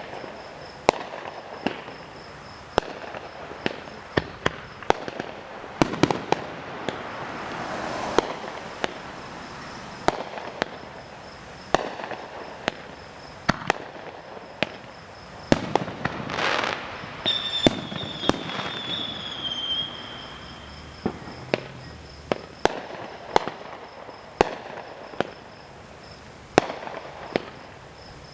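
Fireworks show going off: an irregular string of sharp bangs, roughly one or two a second, with crackling between them. A high whistle sounds partway through and falls slightly in pitch over about three seconds.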